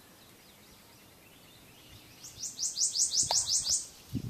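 A songbird singing a quick run of about nine high, rising notes over quiet swamp background, followed by a brief low thump just before the end.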